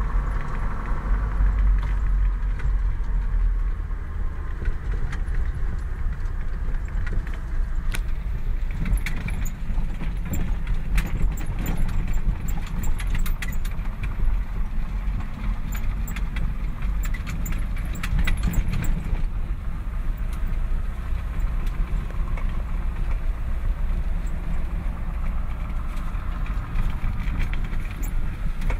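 Kamaz 6x6 truck's diesel engine running steadily under way on a rough dirt track, heard from inside the cab. Loose clicks and rattles come and go over it, thickest partway through.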